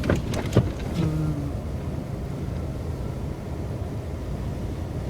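Car engines and tyres in snow making a steady low rumble, with a few sharp knocks in the first second and a brief hum about a second in.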